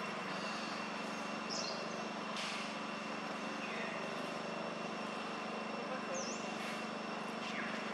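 Outdoor ambience: a steady low hum under several short, high chirps and whistles of birds calling, scattered every second or two.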